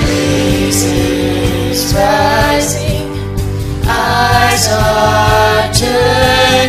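Contemporary worship song played by a band, with voices singing from about two seconds in over a steady drum beat and bass.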